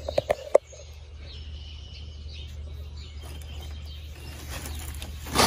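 Paper grocery bag crackling and rustling in a quick cluster at the start and again, louder, just before the end, with birds chirping faintly in the background.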